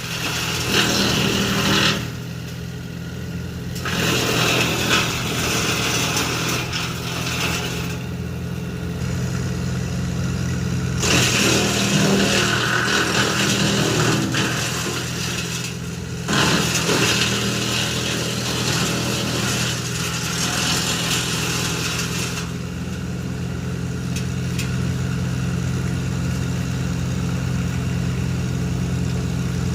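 A tractor engine running steadily, driving a Titan PTO wood chipper, with stretches of loud chipping noise that come and go as brush is fed through.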